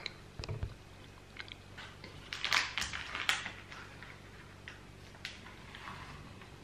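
Biting into and chewing a flaky egg yolk puff pastry: scattered crisp clicks, with a cluster of crackly crunches loudest around two and a half to three and a half seconds in.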